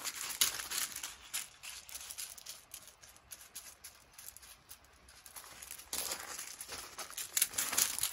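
Footsteps and a dog's paws crunching on loose gravel, louder in the first second or so and again from about six seconds in, quieter in between.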